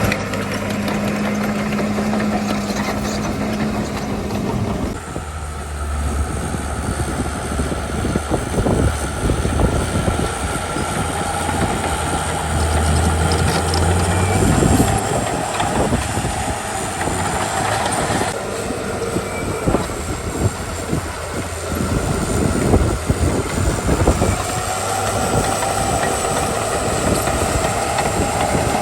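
Komatsu D41E crawler bulldozer's diesel engine running, with its steel tracks clanking and rattling as it moves. The engine note changes about five seconds in, and the clanking grows busier after that.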